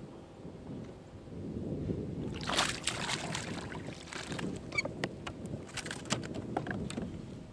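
Water splashing and sloshing beside a fishing kayak as a hooked fish is pulled alongside and grabbed by hand, with short splashes and knocks on the hull. A burst of splashing comes about two and a half seconds in, and smaller splashes and clicks follow.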